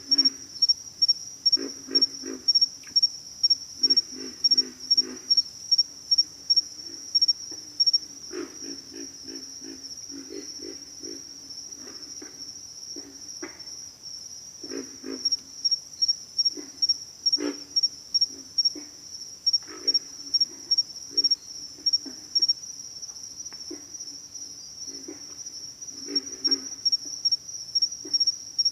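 Pig frogs grunting: runs of short, low, pig-like grunts, several to a run, repeating every second or two with quieter stretches between. Behind them runs a steady high-pitched insect trill.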